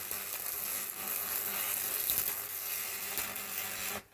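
Stick welding: the electrode's arc crackling and buzzing steadily with a faint hum beneath, for about four seconds, then cut off suddenly as the arc is broken.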